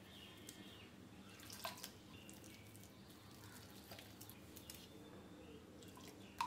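Faint, sparse wet clicks and ticks of a wire whisk working thick gram-flour batter in a glass bowl as water is added little by little.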